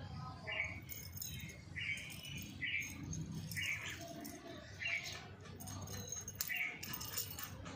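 A bird chirping: short high chirps repeated about once a second.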